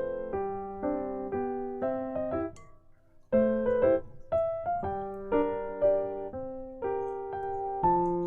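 Background piano music: single notes and chords struck and fading, with a short break about three seconds in.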